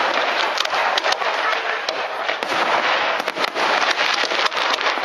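Aerial fireworks display: a dense, continuous crackle from several overlapping bursts, cut through by many sharp pops.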